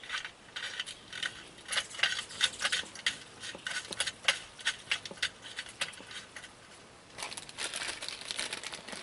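Small metal parts clicking and clinking as O2 sensor plugs with copper washers are handled and fitted into the bungs of chrome motorcycle exhaust header pipes. Near the end comes a crinkly rustle.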